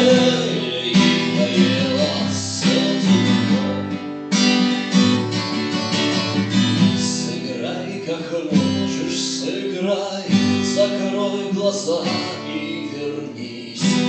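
Instrumental break in a song, led by a strummed acoustic guitar with backing instruments.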